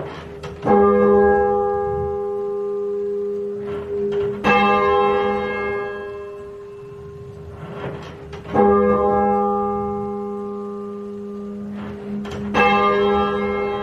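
Muffled church tenor bell tolled alone, four strokes about four seconds apart, each ringing on and slowly fading. The tenor is half-muffled, handstroke muffled and backstroke open, so alternate strokes differ in tone, as is done when tolling for a death.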